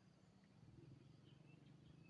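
Near silence: a faint low hum with a few faint, distant bird chirps.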